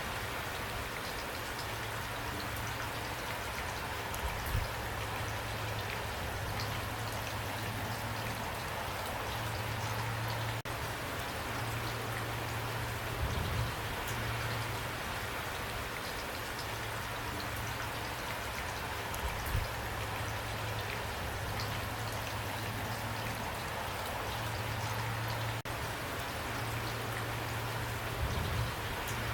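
Steady rain falling, an even patter of drops, with a low rumble that comes and goes underneath.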